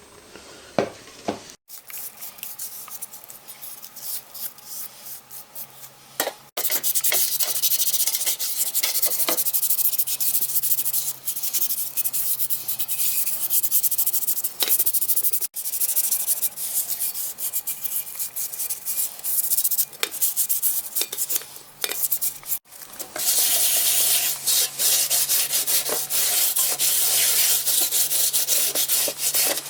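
Abrasive sanding or rubbing on a tea set piece: a continuous scratchy rasp of quick strokes. It comes in several stretches that break off abruptly, and it is louder from a few seconds in.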